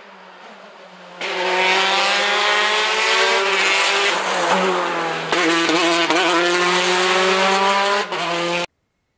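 Rally car engine running hard at high revs as the car comes through the stage, pitch wavering up and down as the driver works the throttle. The engine comes in suddenly about a second in, changes after an edit about five seconds in, and cuts off abruptly near the end.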